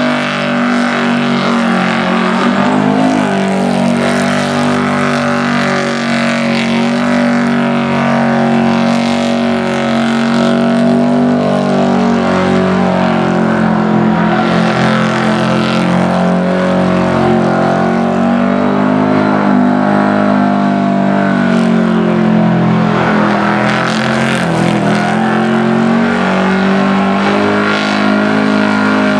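A van's engine held at high revs through a long burnout, its rear tyres spinning against the track surface. The engine note stays nearly constant, with small dips and recoveries, over a dense hiss of tyre noise.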